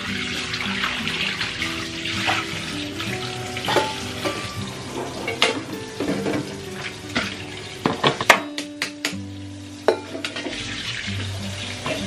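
Tap water running into a stainless steel sink, then clatter of washed cookware being set down: a wire rack, metal pot parts and a plastic container knocking against each other and the counter, with the loudest knocks about eight seconds in. Background music plays throughout.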